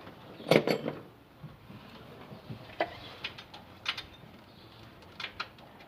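Metal hand tools and parts clinking and clanking: a quick cluster of clanks about half a second in, the loudest, then scattered single clicks and taps.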